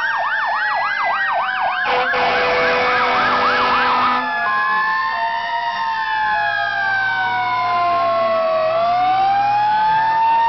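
Fire truck sirens sounding together: a fast yelp for the first four seconds, then several slow wails rising and falling over one another. A steady horn blast sounds over the yelp from about two seconds in to about four seconds in.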